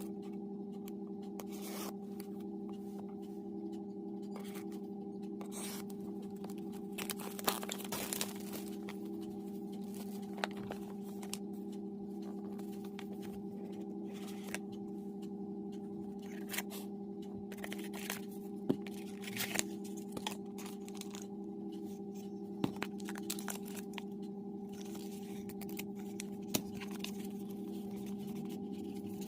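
Smartwatch packaging being opened and handled: scattered rustling, tearing and clicking, over a steady low hum.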